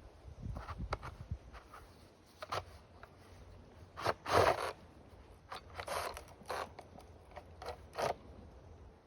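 A string of short, irregular scrapes and rustles, as of something being handled, loudest about four seconds in.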